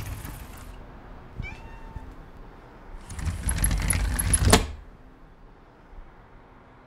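A cat gives a short meow, then a metal mesh security screen rattles for about a second and a half with jangling metallic ticks, ending in a sharp clack.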